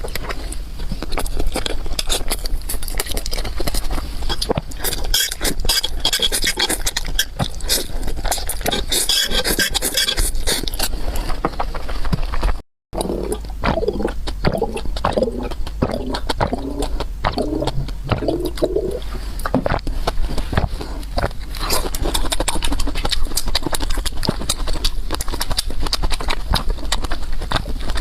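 Close-miked eating sounds: fast chewing and crunching with many quick, crackly wet mouth clicks, cut by a brief dropout about halfway through.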